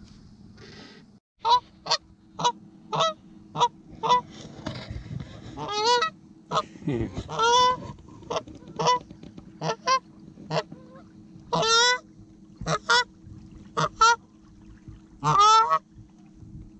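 Canada goose honking repeatedly: short honks about every half second, with a few longer, louder calls mixed in. A faint steady low hum runs underneath.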